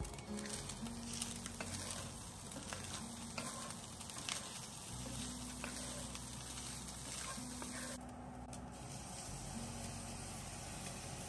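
Chopped chicken sizzling in an enamelled cast-iron skillet, with a wooden spatula scraping and clicking against the pan as it is stirred. About eight seconds in, the clicking stops and the sizzle turns smoother as heavy cream is poured into the hot pan.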